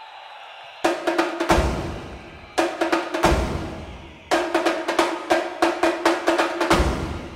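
Drum music: three quick runs of snare-drum strikes starting about a second in, each ending on a deep bass-drum hit, the last run longer than the first two.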